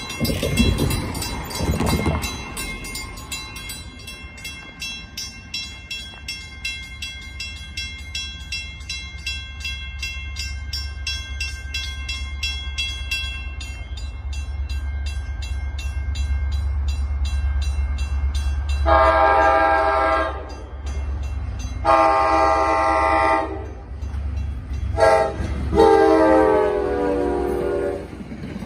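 Grade crossing bell ringing about twice a second, then an approaching NJ Transit diesel train's horn sounding the crossing signal, long, long, short, long, over a rising low rumble of the train. A brief rush of noise comes in the first two seconds.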